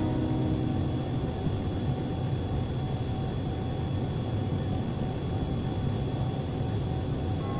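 Steady low background rumble, even and unbroken, with a faint steady high whine above it.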